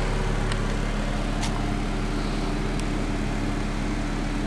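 Car engine idling steadily, a low even rumble.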